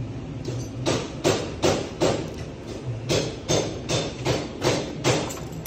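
A run of about eleven sharp knocks, two to three a second, beginning about a second in with a short pause midway, over a steady low hum.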